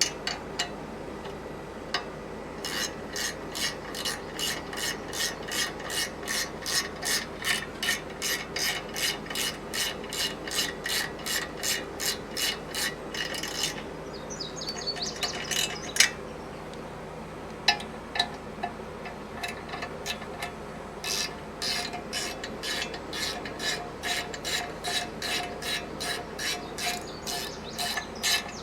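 Hand ratchet wrench being worked back and forth in quick strokes, its pawl clicking about three times a second. It pauses for a few seconds in the middle, with a couple of single clicks, then starts again.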